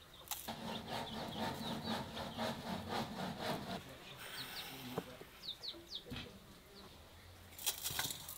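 An insect buzzing close by for about three seconds, followed by a few short high bird chirps. Near the end comes a brief crisp crackling as salt is poured from a spoon.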